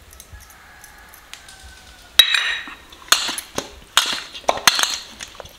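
Stainless steel plate clanking as fish are rubbed with marinade by hand. One sharp clank about two seconds in leaves the plate ringing, followed by a run of irregular clinks and knocks of fish and fingers against the metal.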